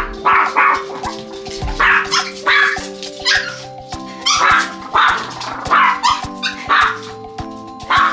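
Chihuahuas barking in a string of short yaps, about a dozen at irregular intervals, over background music.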